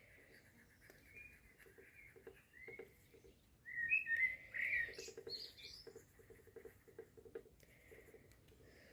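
Small songbird chirping, with a louder run of quick twittering chirps about four seconds in.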